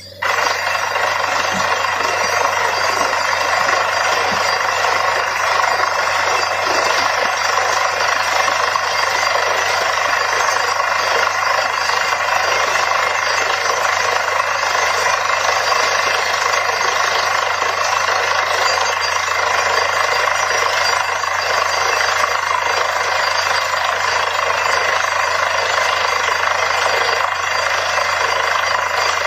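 Truck-mounted borewell drilling rig drilling into the ground: a steady, loud mechanical din of the drill over a constant low engine hum, dipping briefly right at the start.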